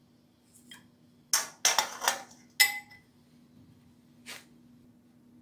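Motorcycle front-fork parts, metal tubes and fittings, being handled and set down: a cluster of knocks and clinks about a second and a half in, a sharp clink that rings briefly, and a lighter knock later on, over a faint steady hum.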